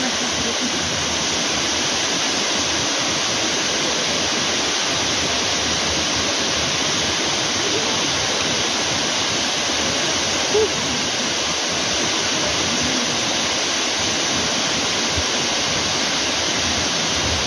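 Steady, unbroken rush of falling water. There is a brief louder sound about ten and a half seconds in.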